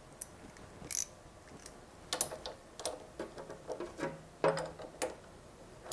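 Socket ratchet wrench loosening the mini bike's chain tensioner nut: scattered sharp metallic clicks and clinks, sparse at first, then coming in short irregular clusters from about two seconds in.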